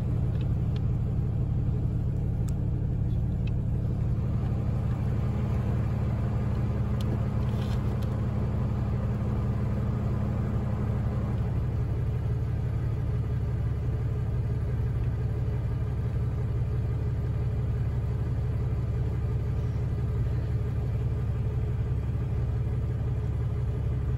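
Vehicle engine idling steadily with a low, even drone. About halfway through, one of its tones drops slightly in pitch.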